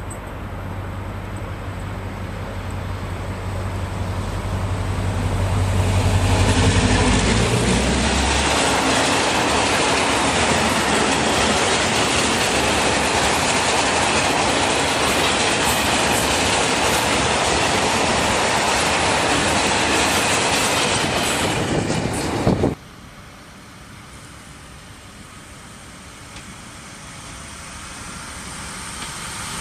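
Series 2062 diesel locomotive running with a steady low drone that grows louder as it approaches and passes. A long string of loaded freight wagons then rolls by with a steady rumble and clickety-clack of wheels over the rail joints. The sound cuts off abruptly about three-quarters through, and a rail maintenance vehicle's diesel engine is heard faintly, growing louder as it approaches.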